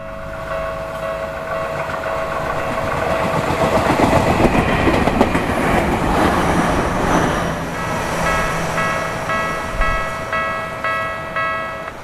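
Tokyu Ikegami Line stainless-steel commuter train passing close over a level crossing, wheels clacking over the rail joints; the rumble builds to its loudest about four seconds in and then fades. Throughout, the crossing's electronic warning bell rings with a repeating chime that stands out again as the train recedes.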